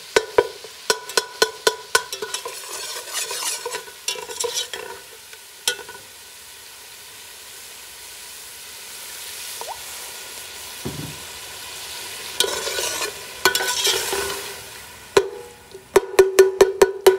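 Slotted steel spoon stirring and scraping a tomato-and-spice masala in a stainless steel pot, with quick ringing clinks against the pot and a steady sizzle of frying. The masala is being fried down to soften the tomatoes. The clinking is fast at the start and again near the end, and there is a quieter stretch of sizzling in the middle.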